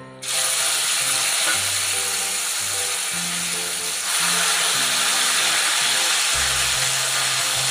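Wet, drained taro leaves hitting hot mustard oil in an iron kadai: a loud sizzle that starts suddenly as they go in and holds steady while they are stirred, growing a little louder about four seconds in.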